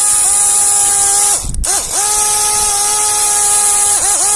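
Small 12-volt air-horn compressor running on its own with power applied, a loud steady motor whine with a hiss of air. The whine cuts out briefly about a second and a half in and twice near the end, its pitch sagging and recovering each time. It is being run to blow the dirt and moisture out of it.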